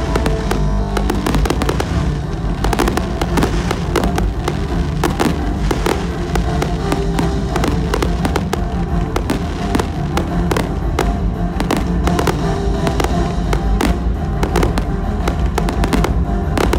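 Fireworks display: a dense, continuous run of bangs and crackles from volleys of shells and comets, with music playing underneath throughout.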